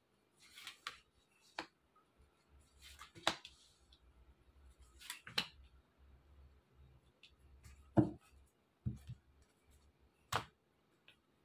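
Tarot cards being drawn from the deck and laid down on a cloth-covered table: a string of sharp card snaps and slides, about six, the loudest about eight seconds in.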